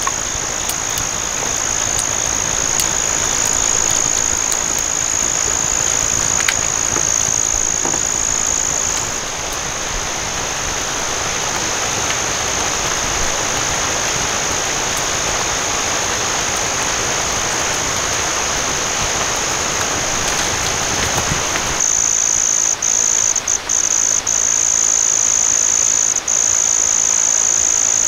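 Night insects keep up a steady, high-pitched chorus over an even rushing hiss. About three-quarters of the way through, the hiss stops abruptly, leaving the insect chorus louder, with a few brief dips.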